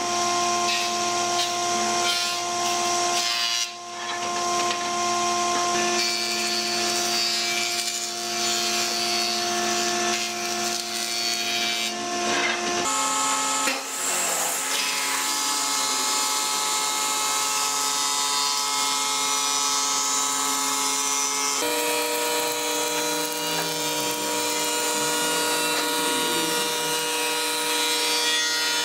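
Electric woodworking machines running, a table saw or jointer and then a thickness planer, as boards are fed through. A steady motor hum with a rasping cutting noise, the tone changing abruptly a few times.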